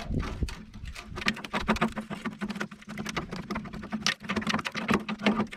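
Rapid, irregular crackling and scraping as corroded sheet metal and rust flakes are picked and broken away by hand from the windscreen pillar, over a steady low hum.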